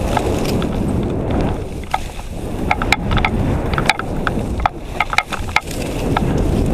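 Skis running through powder snow, with wind buffeting the action camera's microphone as a steady low rumble and irregular sharp clicks and rattles scattered throughout.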